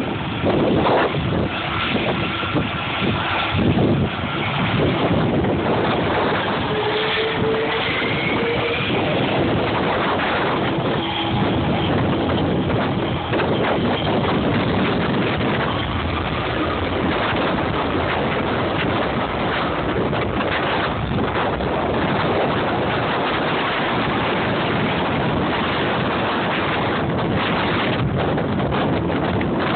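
Boeing 747's four jet engines at takeoff thrust during the takeoff roll: a steady, loud noise mixed with wind buffeting the microphone.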